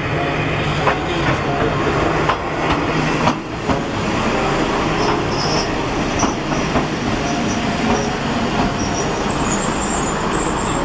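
Two-car Kominato Railway KiHa 200 diesel railcar pulling into the station past the platform. The diesel engine runs under a steady rumble, the wheels click over rail joints, and from about halfway through high thin squeals come from the wheels as the train slows.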